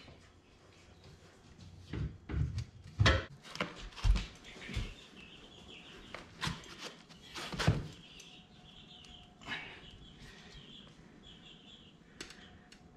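Steel tire irons and a pry bar levering a rear tractor tire's bead over a steel rim: scattered, irregular knocks and clanks of metal against the rim, with quiet scraping between.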